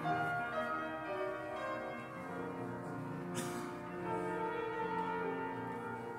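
Piano playing a slow piece, with long held notes of a melody line over it during the second half, in a reverberant church. A short breathy noise sounds about halfway through.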